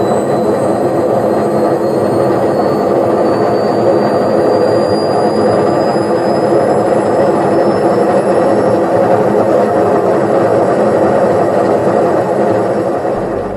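Electrolux EWS 1046 washing machine spinning: a loud, steady rumble from the drum with a faint high whine that rises slowly as it speeds up. The rumble and hum at spin are the sign of a worn drum bearing, which is then replaced.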